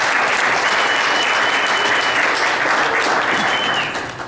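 Audience applauding, with a high held whistle twice, the clapping dying away near the end.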